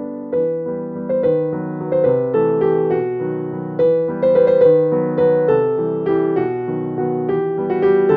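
Background piano music: a slow melody of struck notes that ring and fade over lower held chords.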